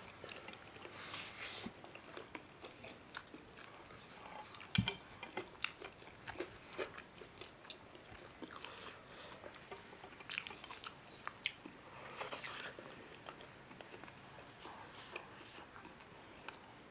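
A person chewing and biting into food close to the microphone, with scattered crunches and wet mouth clicks. One louder crack comes about five seconds in.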